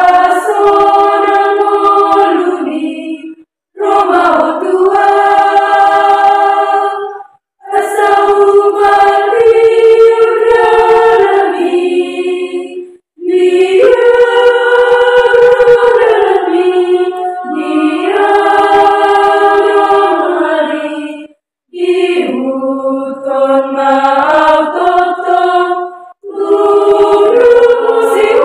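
Choir of girls' and young women's voices singing a hymn in harmony without accompaniment. They sing in phrases of a few seconds each, with five short breaks between them.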